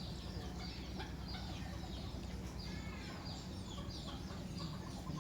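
Many short, high bird calls chirping one after another, over a low steady hum.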